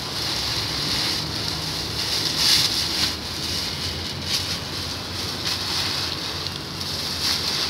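Metallized plastic wrappers rustling and crinkling in irregular bursts as they are crumpled and packed by hand into a woven sack to form a building block.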